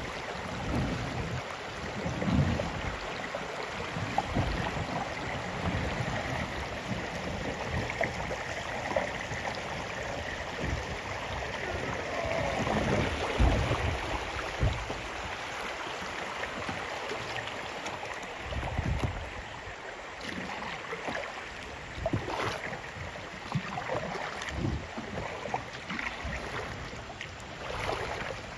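River water rushing around a kayak, with irregular low thumps and knocks.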